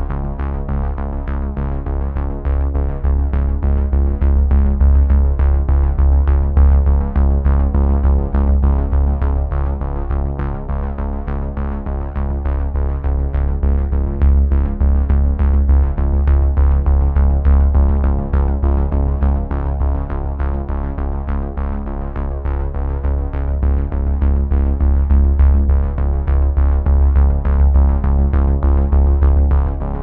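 Background electronic music with a steady beat and heavy bass.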